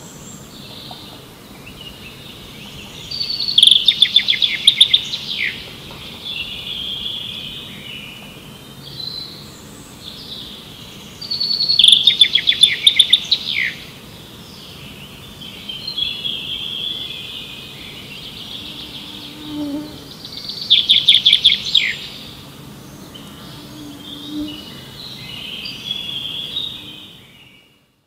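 A songbird singing: a loud, rapid trilled phrase repeated three times, about eight seconds apart, with softer chirps between. The sound fades out near the end.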